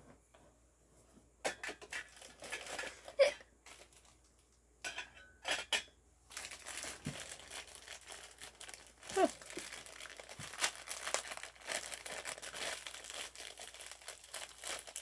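Plastic packaging crinkling as a Funko Soda collectible is unwrapped, in scattered rustles at first, then continuous crinkling from about six seconds in.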